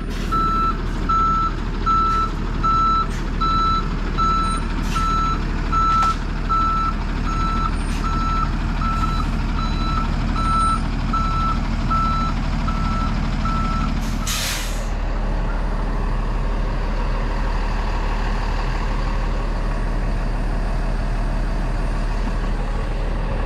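Flatbed delivery truck backing up, its reversing alarm beeping about twice a second over the steady diesel engine. About 14 seconds in the beeping stops, a short air-brake hiss follows, and the engine runs on.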